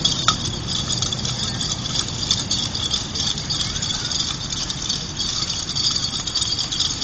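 Steady outdoor background of distant road-traffic rumble with a constant high-pitched hiss over it, and no clear separate events.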